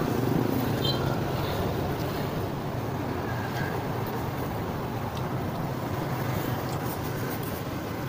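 Steady road traffic noise with a low hum.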